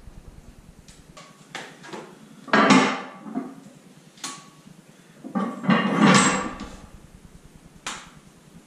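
Metal clanking of a barbell and weight plates: several light clinks and two louder clanks with a short rattle, about two and a half and six seconds in.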